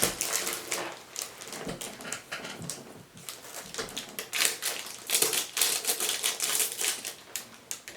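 Mystery wand packaging being handled and opened: irregular clicks, taps and rustles of cardboard and plastic.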